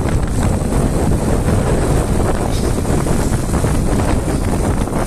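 Wind buffeting the microphone over the steady running of a motorcycle cruising at about 50–60, a dense even rush with no change.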